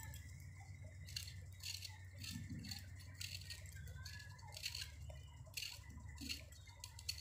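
Hand vegetable peeler scraping the skin off a small potato, a faint run of short rasping strokes about two a second.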